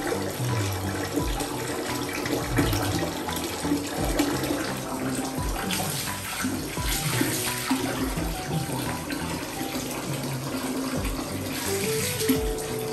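Bath water running steadily from a tap, with background music playing over it.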